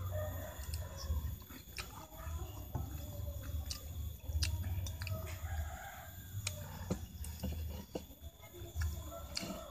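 Chickens clucking and a rooster crowing, over a low rumble, with scattered sharp clicks of chopsticks against a porcelain plate.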